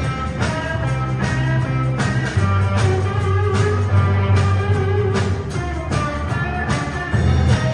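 A live rock band of electric guitar, bass guitar and drum kit playing a rock-and-roll number, with heavy bass notes under the guitar and drums keeping a steady beat.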